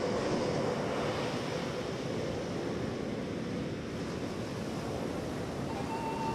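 Steady rushing noise like surf, with no clear beat. Near the end a single held high note enters as the music begins.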